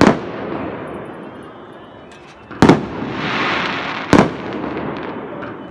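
Aerial fireworks bursting overhead: three sharp bangs, one right at the start, one at about two and a half seconds and one at about four seconds, with a crackling hiss of glittering stars around the last two.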